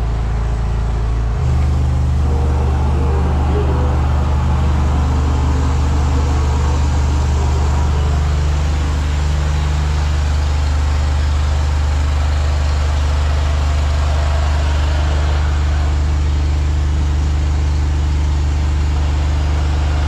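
High-pressure drain jetter's engine running steadily with a deep, even drone. It steps up slightly in level about a second and a half in.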